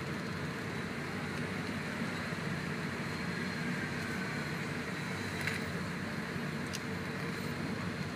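Steady low rumble of idling engines in slow, jammed city traffic, heard from on board a bus, with two faint clicks about five and a half and seven seconds in.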